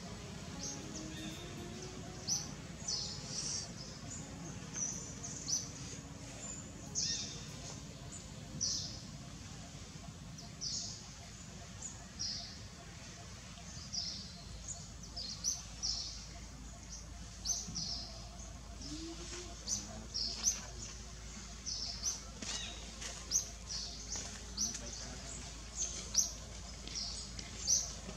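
Small birds chirping: short, high chirps repeated irregularly, about one or two a second, over a faint steady background hiss.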